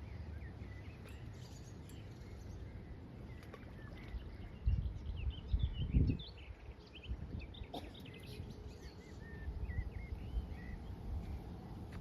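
Small birds chirping and singing, with wind rumbling on the microphone, gusting louder about halfway through.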